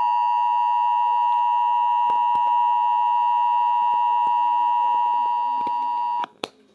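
Emergency Alert System attention signal: a loud, steady two-tone alert tone held at one pitch that cuts off suddenly about six seconds in, followed by a brief click.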